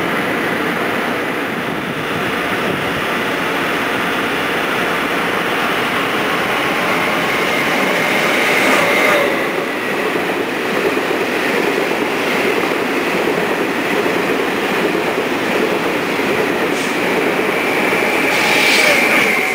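Taiwan Railways E1000 push-pull Tze-Chiang express train running past at speed: a loud, continuous rush of wheels on rail and coaches. A high steady whine rises out of it about halfway through and again near the end.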